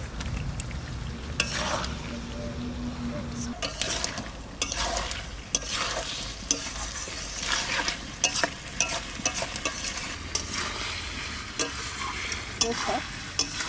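Metal spatula stirring duck meat and fried potatoes in a kadai, with irregular scrapes and knocks against the pan over the sizzle of the meat frying in oil.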